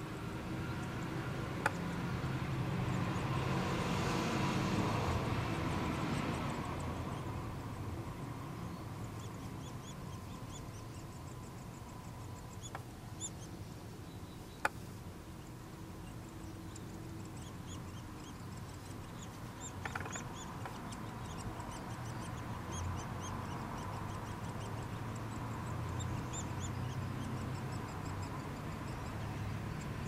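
Nuttall's woodpecker nestlings begging inside the nest cavity with many short, repeated raspy calls as a parent feeds them, over a steady rushing background that swells for a few seconds near the start. Two sharp clicks sound, one early and one about halfway through.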